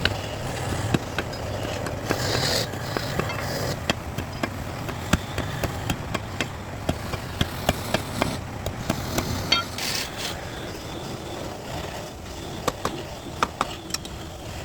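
Irregular light taps and knocks over a steady low rumble, with a couple of brief scraping or hissing patches about two and a half seconds and ten seconds in.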